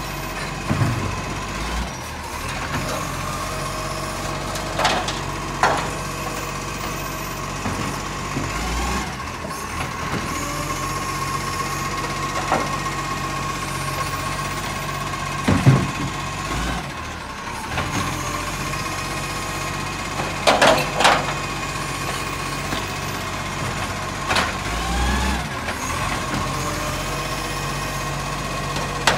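Iveco side-loading garbage truck running steadily with a constant whine while its automatic arm lifts and empties wheelie bins. Several sharp bangs and clunks come as bins are tipped and knocked, the loudest about halfway through.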